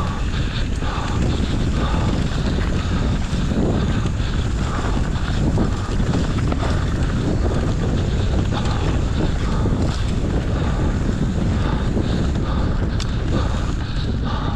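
Steady rush of wind buffeting the microphone on a mountain bike descending fast on a dirt trail, with tyre noise and scattered knocks from the bike over bumps.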